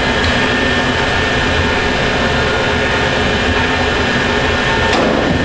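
Tornos-Bechler ENC 162 CNC automatic lathe running: a steady mechanical whir with a constant high whine over a lower hum.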